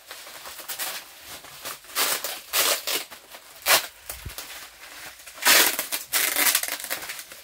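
Plastic bag wrapping crinkling and rustling in irregular bursts as hands pull it open, loudest about five and a half seconds in.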